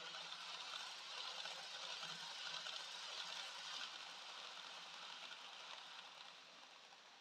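Dapol N gauge HST model train running past on the track, a faint whirring hiss of motor and wheels on rail that swells as it passes and fades away near the end.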